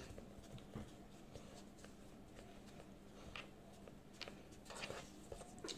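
Faint rubbing of hands rolling a rope of pasta dough back and forth on a wooden cutting board, with a few soft taps.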